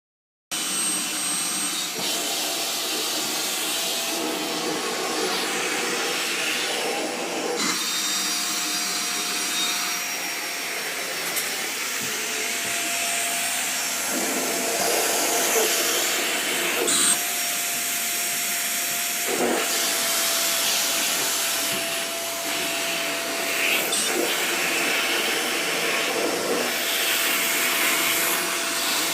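Vacuum cleaner running steadily, switching on about half a second in, with a few light knocks and shifts in tone as it moves.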